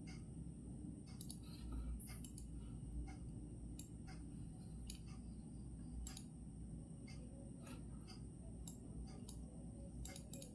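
Clock ticking, sharp clicks about once a second, over a steady low rumble and a faint high steady tone of room background noise.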